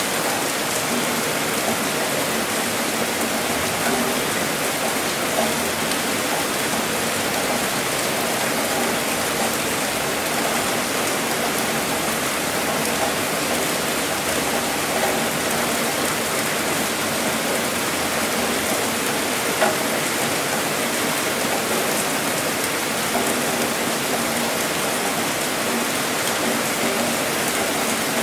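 Steady heavy rain falling, an even dense hiss, with a few louder single drop impacts standing out.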